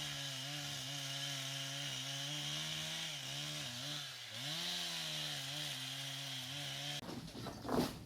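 Chainsaw running and cutting into mango tree wood, its engine note dipping and recovering a few times under load around the middle. It cuts off suddenly about a second before the end, followed by a few brief scraping noises.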